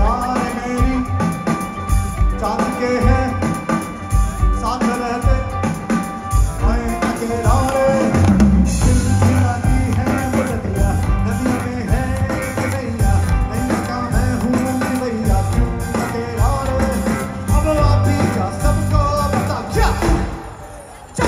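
A rock band playing live through a loud PA, heard from within the crowd: a male singer over drums, electric guitar and keyboards. The music dips down briefly near the end.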